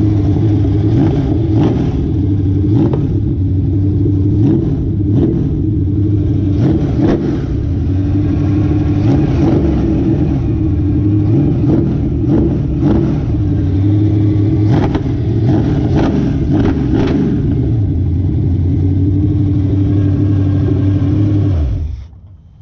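GM 5.7 L Vortec small-block V8 running steadily on an engine stand through short open exhaust pipes, with scattered sharp cracks. It shuts off abruptly near the end.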